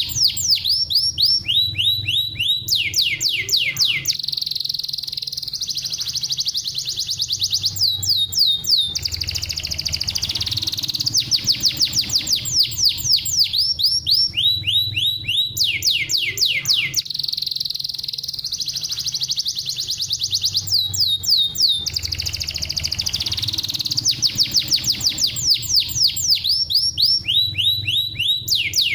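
Domestic canary singing a fast, unbroken song of rolling trills. Each run is a quick series of identical downward-sweeping notes, and the song switches to a new run at a different pitch every second or two.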